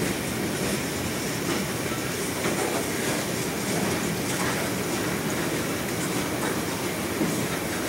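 Freight cars of a passing train rolling by: a steady rumble of steel wheels on rail, with scattered faint clicks.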